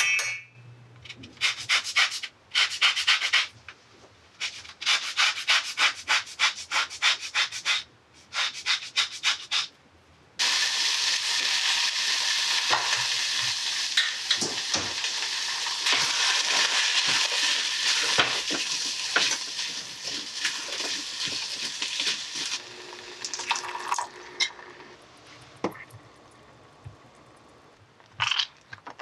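Orange zest rasped off on a long rasp grater, in several runs of quick strokes. About ten seconds in, a steady sizzle starts suddenly and runs for about twelve seconds as cranberries and brown sugar cook in a stainless steel saucepan. Near the end, quieter scraping and clicks of a silicone spatula stirring the cranberry sauce.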